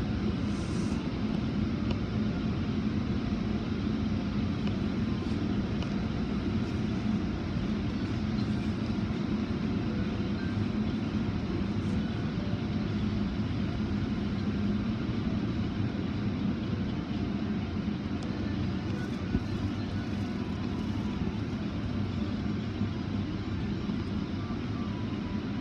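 Automatic car wash machinery heard from inside the car's closed cabin: a steady low drone with an even wash of noise over it that does not let up.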